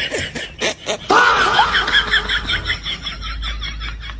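A burst of high-pitched laughter that starts suddenly about a second in, in rapid repeated pulses that trail off.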